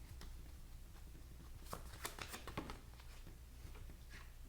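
Faint handling of tarot cards, a few soft taps and rustles as the deck is shuffled and a card drawn, over a steady low hum.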